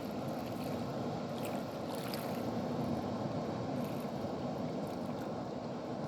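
Water being released from a low river dam, rushing and splashing in a steady, light, even rush.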